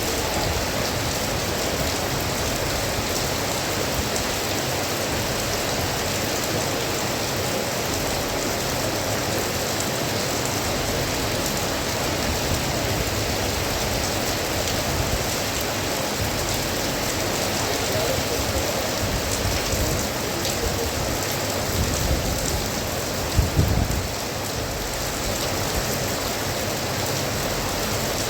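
Monsoon rain falling steadily, a dense even hiss of rain on surfaces. A brief low rumble or thump rises out of it a little past the 22-second mark.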